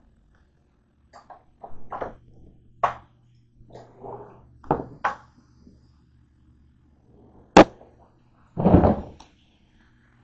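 A string of separate clicks, taps and knocks from objects and the camera being handled, with a sharp click about seven and a half seconds in and a heavier thump just after.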